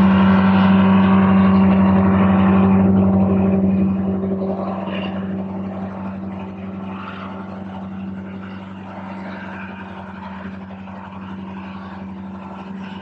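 A motor's steady hum with a strong low tone. It starts suddenly, is loudest for the first four seconds, then eases to a lower, steady level.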